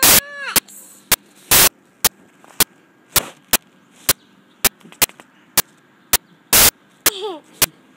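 A toddler's short, high-pitched vocal sounds, sliding down in pitch, just after the start and again about seven seconds in, over a steady run of sharp clicks about twice a second.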